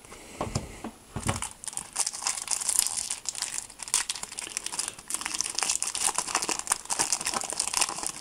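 Foil wrapper of a Panini Adrenalyn XL trading-card booster pack crinkling as it is torn open by hand and the cards are pulled out: a dense, continuous crackle lasting several seconds. A couple of soft thumps come just before it, in the first second.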